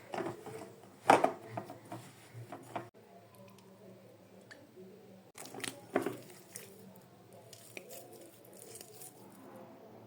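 Wrap dough being kneaded by hand: soft squishing and slapping with a few sharp knocks, the loudest about a second in and again about six seconds in.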